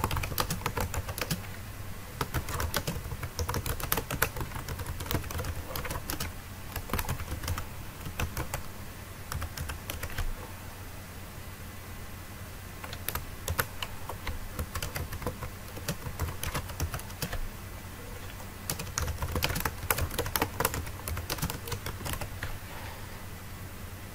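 Typing on a computer keyboard in quick runs of keystrokes, broken by short pauses.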